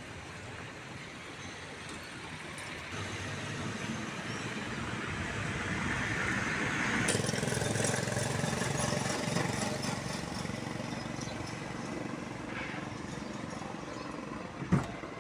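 Street noise with a motor vehicle passing: it grows louder to a peak about seven seconds in, then fades. A sharp knock comes near the end.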